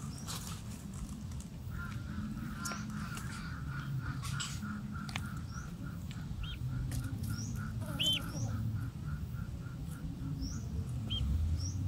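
A bird calling in a steady series of short, evenly spaced notes, about four a second, from about two seconds in until near the end, with a few brief high chirps from other birds.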